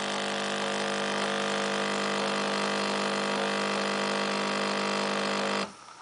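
Princess pad coffee maker's pump buzzing steadily as it pushes hot water through the coffee pad and out of the spouts, then cutting off suddenly near the end as the cup finishes brewing.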